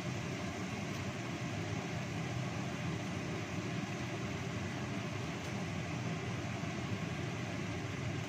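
Kitchen range hood extractor fan running with a steady, even whooshing hum.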